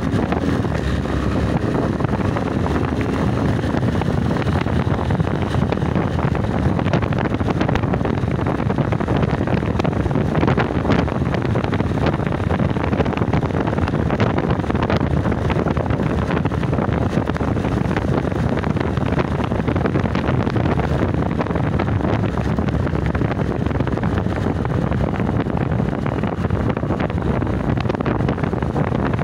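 Steady wind rush over the microphone on a moving motorcycle, with the motorcycle's engine running beneath it at cruising speed.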